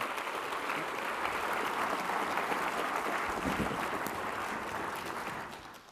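Audience applauding, a steady clapping that dies away near the end.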